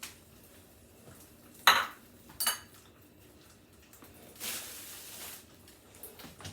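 A metal utensil clinking twice against cookware, the second strike ringing briefly, then a short hiss of about a second.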